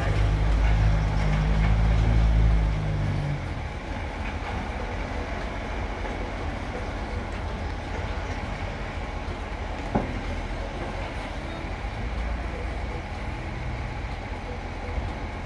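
A four-wheel-drive's engine passing close by, loud for the first three seconds, then the steady low rumble of a rubbish truck's engine running, with a single knock about ten seconds in.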